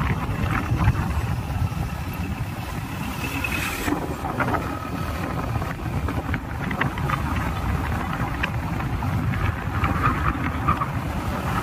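Steady low rumble of a moving road vehicle, engine and road noise together, with scattered faint clicks.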